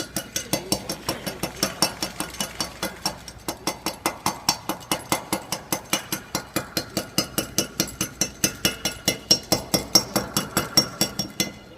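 Hammer striking steel in a rapid, even run of about five ringing metallic hits a second.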